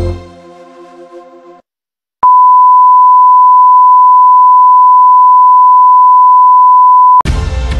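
A TV station ident jingle fades out, and after a short silence a loud, steady test-pattern tone (the line-up tone that goes with colour bars) sounds for about five seconds. It cuts off abruptly as new ident music starts near the end.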